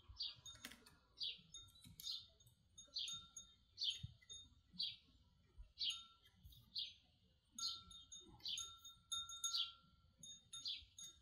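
A bird chirping over and over in short, high calls, about one to two a second, with a faint click of plastic pipe pieces being fitted together about a second in.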